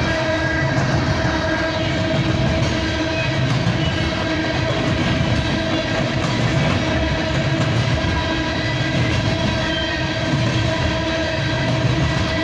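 Empty coal hopper cars rolling past on the rails in a steady rumble, swelling every couple of seconds, with a steady whine held above it throughout.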